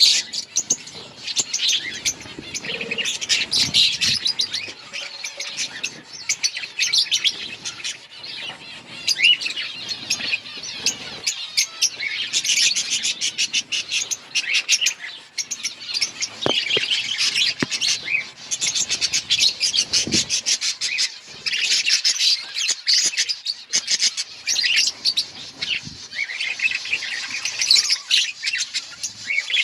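A flock of budgerigars chirping and warbling all together, a dense, continuous chatter of quick high chirps.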